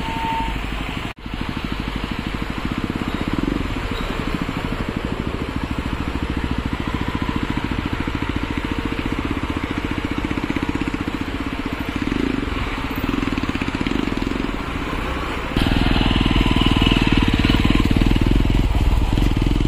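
Isuzu V-Cross pickup's diesel engine running steadily as the truck drives over rough ground. The sound cuts out for a moment about a second in and grows louder near the end.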